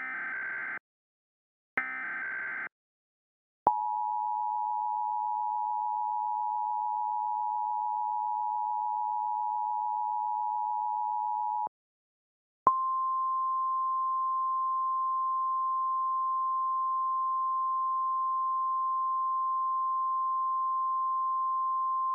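Emergency Alert System tones. First come two short buzzy data bursts of the SAME header. Then the two-tone attention signal is held for about eight seconds, and after a second's gap a single steady, slightly higher tone is held for about ten seconds.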